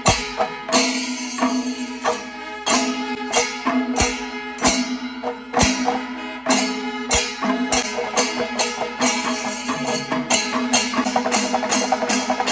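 Traditional percussion music: drum and cymbal strokes in a steady rhythm over a held low tone, the strokes growing faster and denser near the end.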